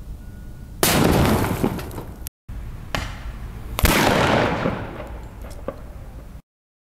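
HPA-powered TAGinn ML36 airsoft grenade launcher firing, in separate sharp bursts that each trail off over a second or more: one about a second in, then a softer one and a louder one close together in the middle. The sound cuts off short of the end.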